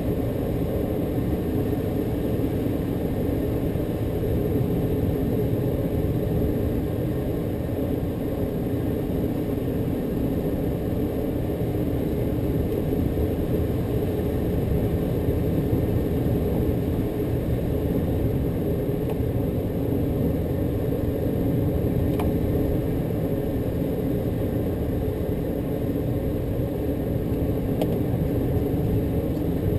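Small aircraft's engine droning steadily, heard inside the cockpit together with airflow rumble.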